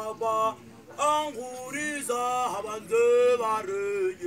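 A man's voice singing in phrases of long held notes, with a short break about half a second in and the loudest held note about three seconds in.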